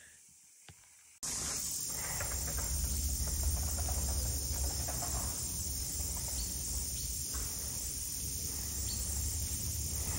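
Steady high-pitched insect drone, like crickets or cicadas, starting suddenly about a second in after near silence, with a low rumble underneath.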